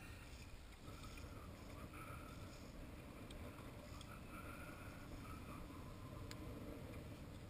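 Faint water lapping against a small boat's hull, with a few light clicks.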